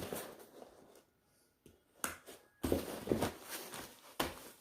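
Rustling and sharp clicks of a nylon backpack and its contents being handled, broken by about a second of dead silence a little past the first second.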